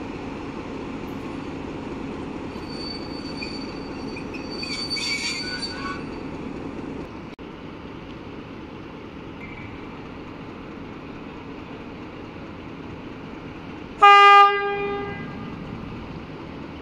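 Low steady rumble of a train, with a brief high squeal about five seconds in. The rumble drops away partway through, and near the end a 060-DA diesel-electric locomotive gives a single short, loud horn blast, its signal before departing.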